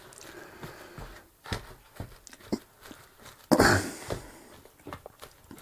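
Plastic spatula pressing down and scraping a moist bread-dumpling mass in a plastic mixing bowl: scattered soft taps and scrapes, with one louder scrape a little past the middle.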